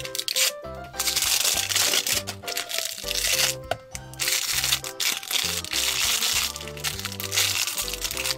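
Crinkling and crackling of thin plastic wrapping as it is torn and peeled off a toy surprise ball by hand, in two main stretches, over light background music.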